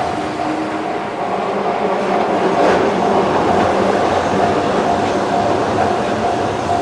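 Keihan 700 series two-car electric train running across a steel girder bridge, its rumble and wheel clatter loudest a couple of seconds in. Under it a level-crossing bell rings in a steady repeating tone.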